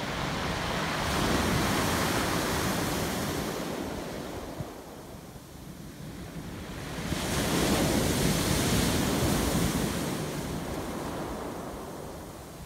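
Surf on a pebble beach: two waves break and wash up over the stones, each swelling and fading over several seconds, with a low rumble of wind on the microphone.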